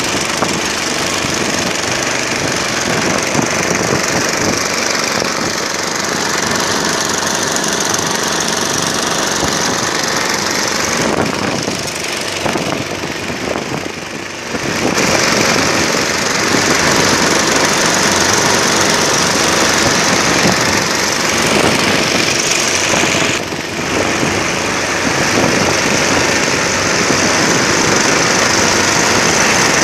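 Small fishing boat's engine running with a fast, hard knocking beat, under a steady hiss of rain and wind. The noise drops for a few seconds about halfway through and again briefly later.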